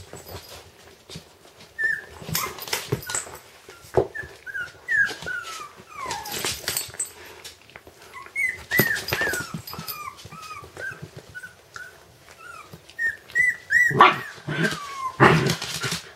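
Puppies whimpering: a string of short, high squeaks, each falling in pitch, with scraping and knocking noises between them. A few louder bumps come near the end.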